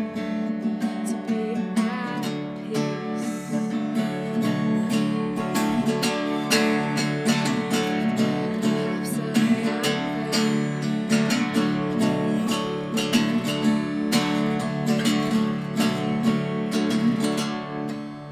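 Tanglewood acoustic guitar strummed in a steady rhythm of full chords, with no voice over it; the strumming softens near the end.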